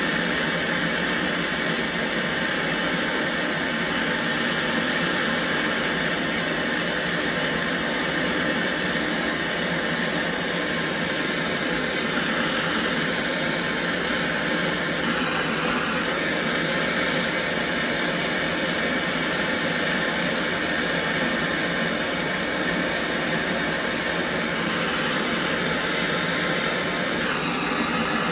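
Handheld gas torch burning with a steady rushing hiss, its flame played on a gasoline stove's metal fuel tank to weld a repair.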